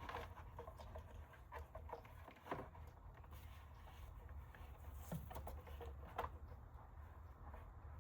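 Faint scattered clicks and light knocks of hands handling a removed engine valve cover and its gasket, over a low steady hum.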